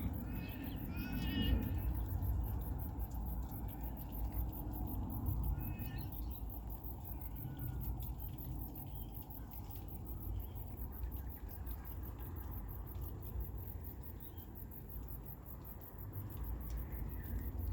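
Suburban outdoor ambience: birds calling now and then, the clearest near the start and again about six seconds in, over a fast, even, high-pitched insect pulsing and a steady low rumble.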